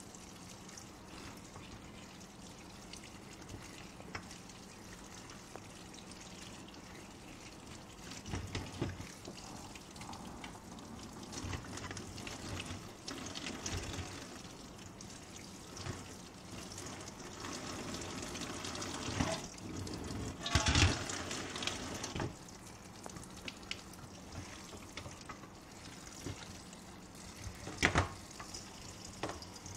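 Kitchen tap water running steadily into a stainless steel colander while Malabar spinach leaves are rinsed by hand under the stream. A few louder splashes and knocks from the handling break in, the loudest about two-thirds of the way through and another near the end.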